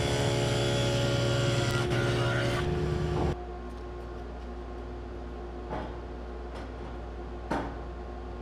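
Table saw running as an oak board is fed through it to cut a dado, stopping abruptly about three seconds in. Then a quieter stretch with two short knocks as the wooden bar top is set onto its steel frame.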